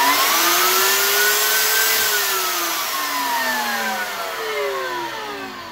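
Kobalt fixed-base corded router in its table, single-speed, switched on at full power: a loud whine rises as the motor spins up. About two seconds in the pitch starts to fall and keeps falling steadily as the motor winds down.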